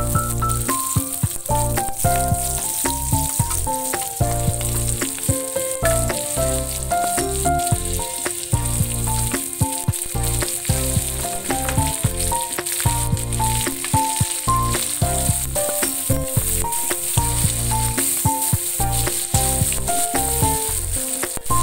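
Pork and onions sizzling in a wok as they are stirred with a wooden spoon, a steady hiss with small crackles. Background music with a melody and a pulsing bass plays over it.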